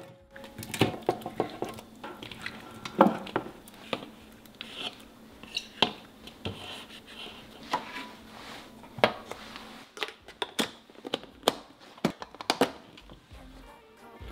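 Spatula scooping seasoned cubed radish kimchi out of a ceramic bowl into a stainless steel container: soft wet squishing of the radish pieces with scattered clicks and knocks of the spatula against the bowl and the steel tin.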